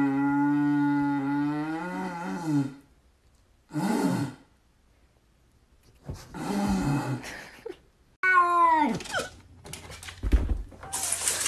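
A man blowing a steady low drone through a long tube like a didgeridoo, then a husky howling back in several calls, the last one sliding down from high to low.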